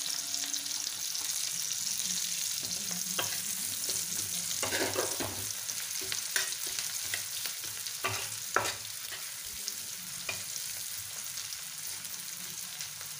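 Chopped onions and garlic sizzling in hot oil in a frying pan, a steady hiss. A metal spatula scrapes and knocks against the pan now and then as they are stirred.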